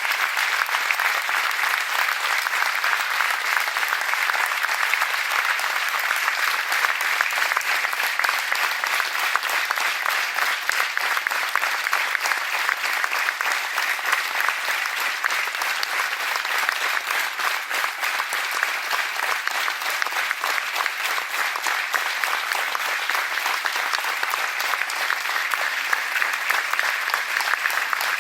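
Crowd applauding: dense, steady hand clapping from many people, keeping an even level throughout.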